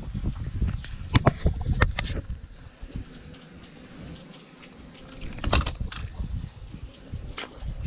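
Wind rumbling on the microphone, with a handful of sharp clicks and knocks from hands handling the fish and gear: a cluster between about one and two seconds in, another about five and a half seconds in, and a lighter one near the end.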